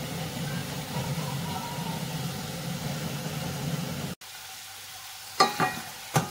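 Chicken pieces frying in a stainless steel pot over a steady low hum. About four seconds in the sound cuts out briefly, then a wooden spoon stirs the chicken, knocking against the pot a few times.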